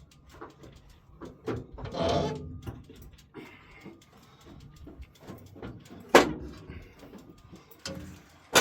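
Metal latches and handles of a large excavator's engine-compartment doors rattling and clicking as they are worked open by hand, with a sharp metal clank about six seconds in and another at the end.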